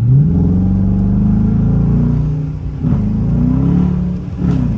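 Dodge Charger Daytona R/T's 5.7-litre Hemi V8 accelerating hard. The engine note climbs, drops sharply about three seconds in as the car shifts up, climbs again and drops once more near the end.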